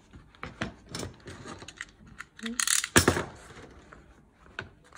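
Paper and a journal's covers being handled on a cutting mat: light taps and paper rustles, with a louder rustle and a sharp knock about three seconds in.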